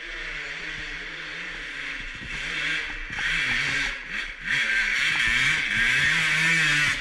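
Dirt bike engine revving hard under load as it climbs a steep hill, growing louder as it nears, its pitch rising and falling with the throttle and cutting back briefly twice about four seconds in.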